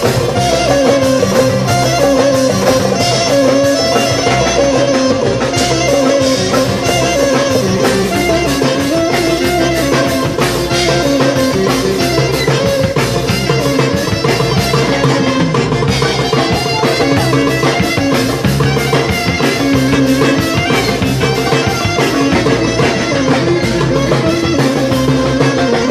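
Live Greek instrumental music: a clarinet carrying an ornamented melody over bouzouki and percussion with a steady beat.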